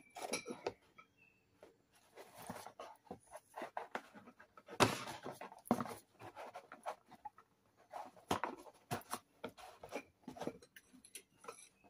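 Irregular scraping and rustling as steel pushrods are pushed one by one into numbered holes in a cardboard holder by gloved hands, keeping them in order during an engine strip-down. The loudest scrape comes about five seconds in.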